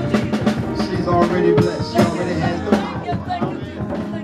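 Church praise music: a drum kit playing a steady beat under held keyboard chords.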